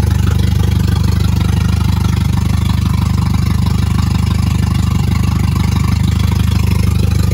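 VW Golf race car's four-cylinder engine, fitted with a big cam, idling loud and steady with rapid choppy exhaust pulses through only about six inches of exhaust. It is freshly rebuilt and warming up after the cam swap.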